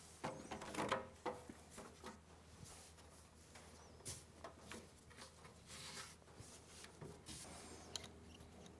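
Faint rustling and scraping of a rubber drawer liner being laid into a steel tool chest drawer, with a few light clicks and knocks of handling, busiest in the first second or so.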